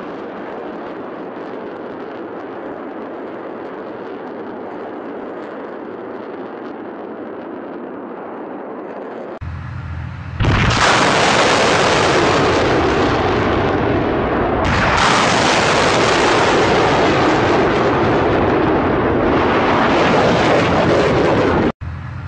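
A steady rushing noise, then from about ten seconds in a loud, continuous roar of rocket launches, rising a step near fifteen seconds and cutting off abruptly near the end.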